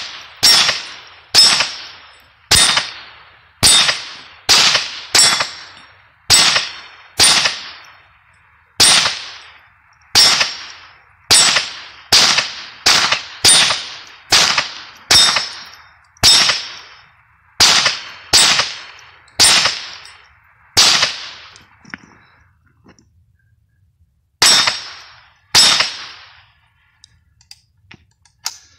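Mossberg Blaze .22 LR semi-automatic rifle firing about two dozen Remington Golden Bullet 36-grain hollow-point rounds at an uneven pace, each sharp crack followed by the brief ring of the AR500 steel target. The firing stops a few seconds before the end, and a few faint clicks follow.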